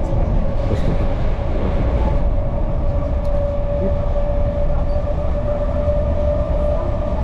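Passenger train running along the line, heard from inside the carriage: a steady rumble of wheels and running gear with a constant tone running through it.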